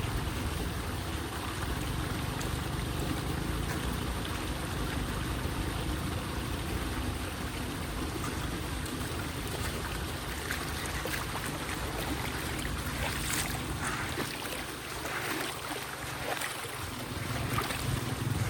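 Water running steadily, with wind rumbling on the microphone and a few brief sharper splashes in the second half.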